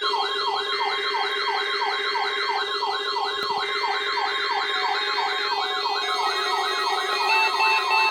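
NOAA Weather Radio weekly test tones from weather alert radios: a warbling alert siren sweeping about three times a second over a steady tone, with bursts of SAME data tones coming and going. A pulsing beep joins near the end.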